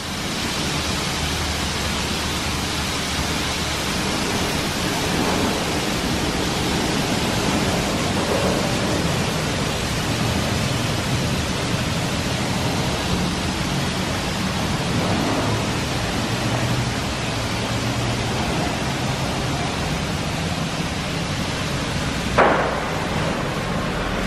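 Ryko SoftGloss XS 2 rollover car wash spraying water and foam over a car: a steady rushing hiss with a low hum of its motors underneath. There is one short, sharp burst near the end.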